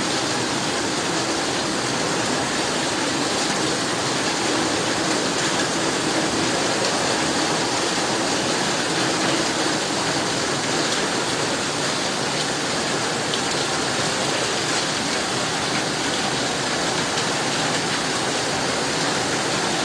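Fast-flowing floodwater rushing down a street together with heavy typhoon rain: a steady, unbroken rush of water.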